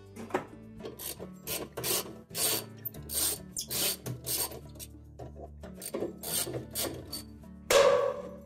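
Ratchet with a 1/2-inch socket and extension backing out the washer's inner-basket mounting bolts. It makes repeated short raspy ratcheting strokes, about two a second, with a louder, longer stroke near the end.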